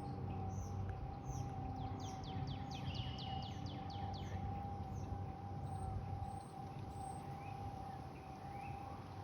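Outdoor warning siren on a water tower holding one steady, unbroken tone during a test drill, not a real alert. Birds chirp over it, with a quick run of falling chirps about two seconds in.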